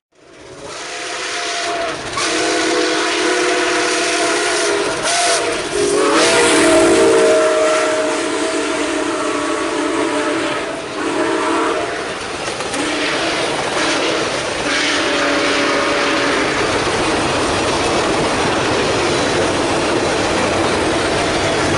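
A train sounding its multi-note air horn in several long blasts, followed by the steady rumble and rattle of the train running past.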